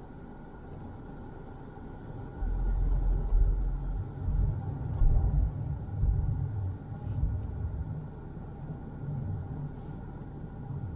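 Car driving in traffic: steady road and engine noise, with a louder, uneven low rumble setting in about two seconds in.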